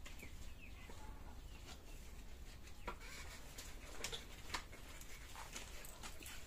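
Quiet background with faint bird chirps in the first half second and a few light clicks later, over a low steady hum.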